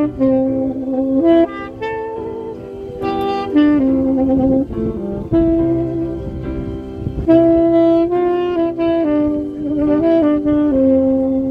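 Tenor saxophone playing a slow melody. The notes are held and legato, changing every half second to a second or so, and some of the longer ones have a slight vibrato.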